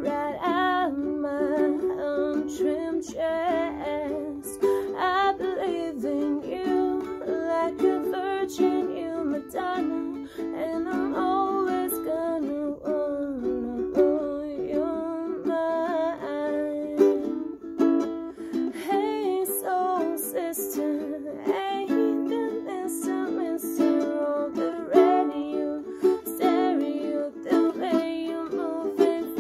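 Ukulele strummed steadily through a song's chords, with a voice singing along over it.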